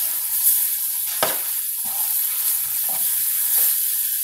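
Floured chicken breasts sizzling steadily as they fry in a skillet, with a few sharp clicks and scrapes of metal tongs against the pan as a piece is turned.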